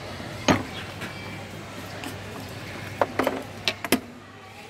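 Small hand tools clicking and tapping on a goldsmith's wooden workbench: one sharp tap about half a second in, then a quick run of five or so clicks and taps about three seconds in, over a steady low hum.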